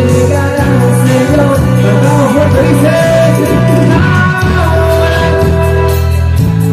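Live music from a Mexican romantic band: sustained melody lines over a steady bass, with a cymbal ticking out the beat.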